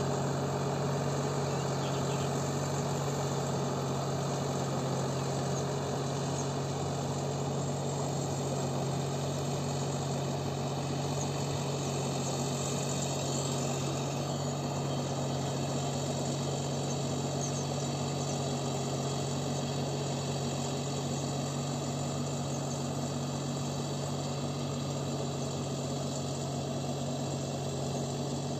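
Deutz-Fahr Agrolux 50 tractor engine running steadily under load while pulling a rotary tiller, a constant low hum.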